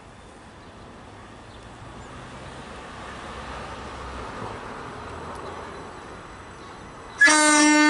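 Multiple-unit passenger train approaching, its low rumble slowly growing louder; about seven seconds in the driver sounds the horn, a loud, steady tone that is the loudest thing heard.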